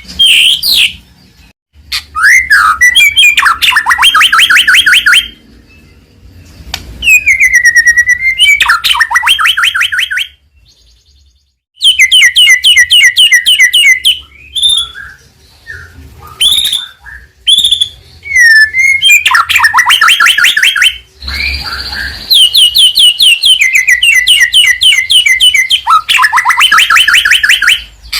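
White-rumped shama (murai batu) singing in full voice: loud bursts of very rapid repeated notes, each a second or two long, alternating with whistled slurs and shorter notes, with brief pauses between phrases.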